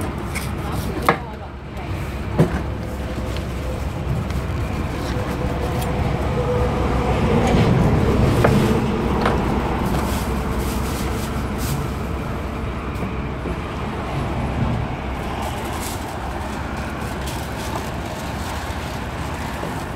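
Steady low rumble of road traffic with voices in the background, and a few sharp knocks near the start.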